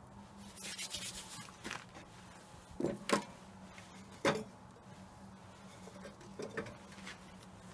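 Gear being handled on a metal grill grate: rustling near the start, then four short light knocks as objects are picked up and set down, over a faint steady hum.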